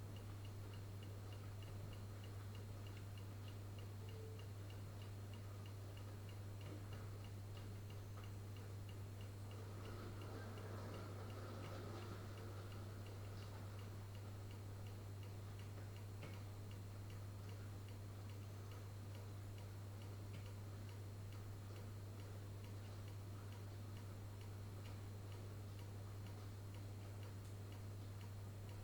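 Refrigerator hum, a steady low drone, under a light, regular ticking of about two to three clicks a second. Around ten seconds in, a faint rustle swells briefly and fades.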